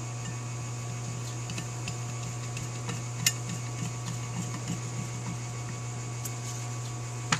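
Steady low background hum with faint clicks and taps as a cast carburetor float bowl and its small parts are handled, one sharper click a little after three seconds in.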